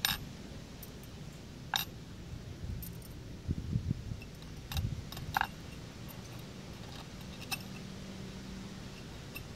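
Large steel nails clinking against one another in a handful of separate sharp clicks as the bundle of nails is handled and set onto the head of another nail, with a few dull handling knocks in between.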